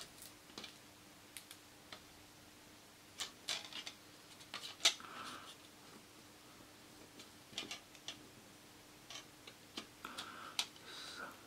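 Irregular light clicks and taps of a clear plastic CD jewel-case tray being handled, the sharpest about five seconds in, with short paper rustles as a paper spine strip is pressed and slid along the tray's edge.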